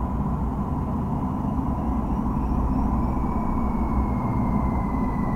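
Car driving, heard from inside the cabin through a dashcam's built-in microphone: a steady rumble of engine and road noise, with a faint whine that slowly falls in pitch in the second half.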